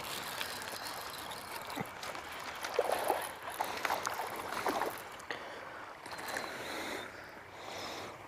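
Water splashing and gurgling, with scattered clicks and sharper splashes about two and a half to five seconds in.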